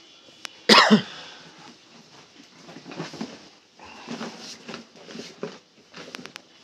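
Soft-sided suitcases being shifted and handled: scuffing and rustling, with a few sharp clicks near the end and one short loud burst about a second in.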